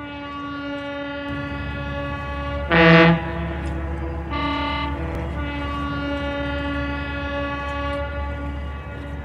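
A steady, horn-like tone with many overtones held over a low rumble, with a louder blast about three seconds in and another shorter rise about four and a half seconds in.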